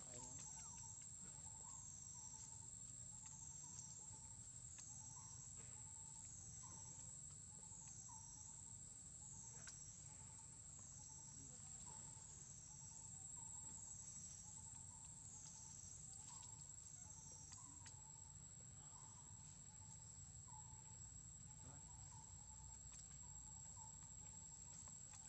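Faint insect chorus: a steady high buzz with a trill that swells and fades about once a second, which stops about three-quarters of the way through. Under it, a short low chirp repeats about once a second.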